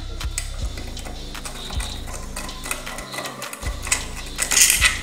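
Screwdriver working the earth-wire terminal screw on an old electric iron's metal body: small metallic clicks and scrapes, with a louder rasp near the end.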